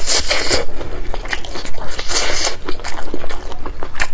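Close-miked eating: crunchy bites into crisp fried food and chewing, with two louder crunching spells, one at the start and one about two seconds in, between sharper clicks.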